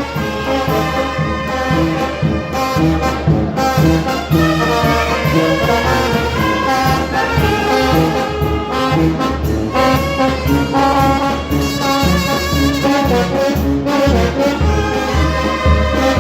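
Mexican village brass band (banda) playing a tune, with trumpets and trombones over a steady, pulsing bass beat.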